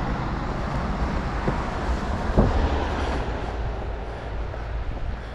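Interstate highway traffic with tractor-trailers passing, a steady heavy rumble heard from beneath the underpass, with a thump about two and a half seconds in.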